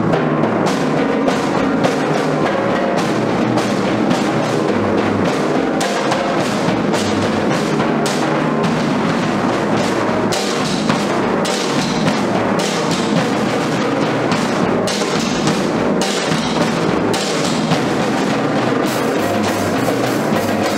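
Children's percussion ensemble playing a rhythmic piece on drums and a drum kit, a dense run of drum strokes. The cymbals come in louder near the end.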